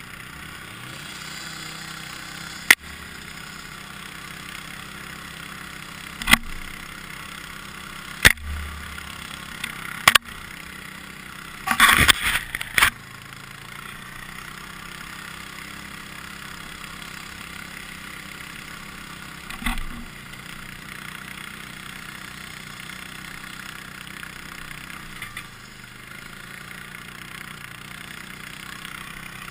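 Suzuki King Quad 750 ATV on tracks, its single-cylinder engine running steadily on the trail. Several sharp knocks break in, with a quick cluster of them about twelve seconds in.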